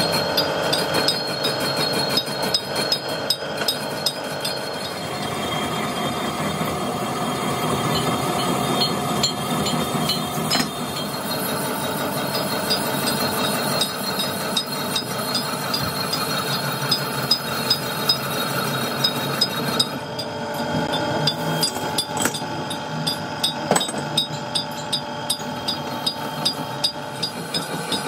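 Metalworking machinery running steadily, with a light ticking or clinking repeated about twice a second.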